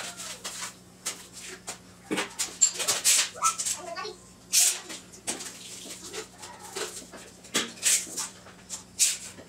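Irregular short scrapes and clicks of hand work on a concrete floor, about a dozen over the stretch, with a tape measure held against the wall by a fresh mortar pad. A few faint rising-and-falling whines and a steady low hum sit underneath.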